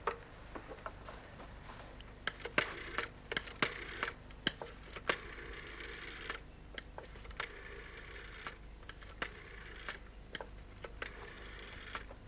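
A rotary telephone being dialled: a run of sharp clicks and the soft whirr of the dial running back, repeated over several digits.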